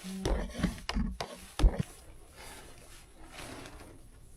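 A few knocks and rustling, the loudest knock about one and a half seconds in, then a quieter steady hiss.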